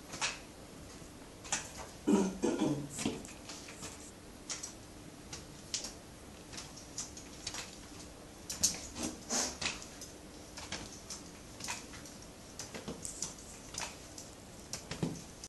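Forearm crutch tips and shoes tapping and scuffing on a hard floor in an irregular walking rhythm as a person walks with two crutches and leg orthoses. Brief squeaks come about two seconds in and again near nine seconds.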